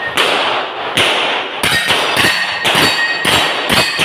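A fast string of about ten gunshots from a firearm in a practical shooting course of fire. There is a short gap after the first shot, then shots come roughly two to three a second. Each shot has a brief echo off the concrete walls of the shooting bay.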